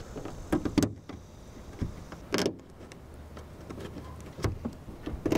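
Plastic trim panel being pressed by hand onto the underside of a car's trunk lid, its push tabs snapping into place: a few scattered clicks and knocks, the loudest about halfway through.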